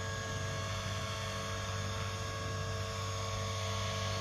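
Steady hum of an E-flite P-51D's electric motor and propeller in flight, holding an even pitch.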